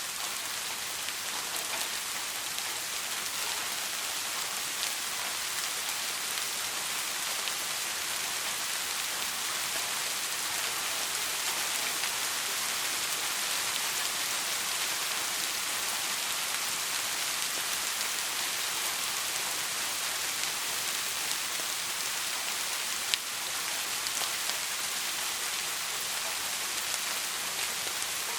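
Steady rain falling, an even hiss of many fine drops on a surface. There is a single sharp tick about three-quarters of the way through.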